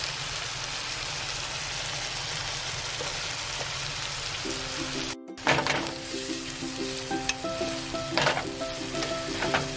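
Shrimp frying in melted butter, oil and garlic in a pan, a steady sizzle. From about halfway, background music with held notes comes in over it, and a utensil scrapes through the pan a few times.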